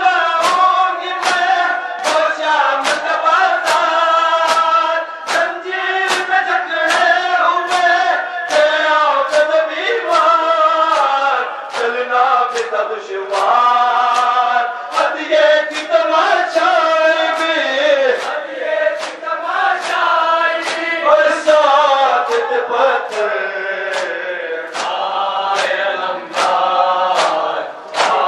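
Men's voices chanting an Urdu nauha (mourning lament), with hand-on-chest matam strikes in a steady beat of about one and a half a second.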